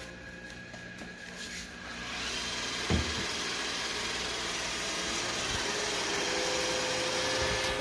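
iRobot Roomba i7+ robot vacuum starting its suction and brushes about two seconds in, then running steadily, with a single knock a second later.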